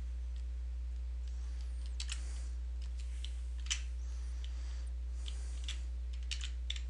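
A few scattered computer keyboard keystrokes, single clicks spaced out with a quick cluster near the end, over a steady low electrical hum.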